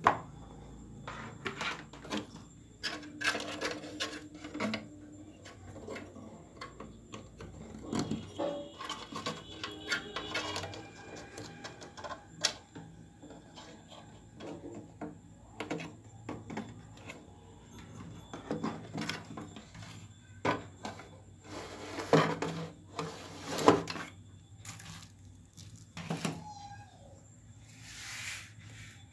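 Scattered clicks, knocks and rustles of hands handling the wiring and metal-and-plastic chassis of an opened CRT television, a few knocks louder around the middle and near the end, over a faint steady hum.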